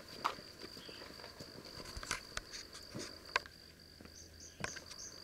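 An insect chirping in a steady, rapid run of high-pitched pulses, with scattered footsteps on a dirt path.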